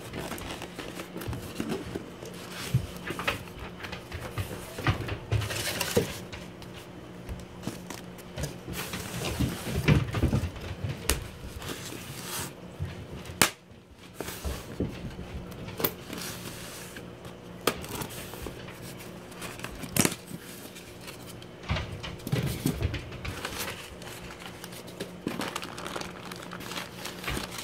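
Handling sounds of a cardboard shipping box being opened and a styrofoam cooler lifted out and handled: rustling and scraping with scattered knocks and clicks, over a steady low hum.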